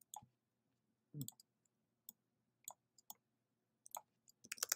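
Single computer mouse clicks, spaced out, about one every half second to a second. Near the end they give way to a fast run of keyboard typing.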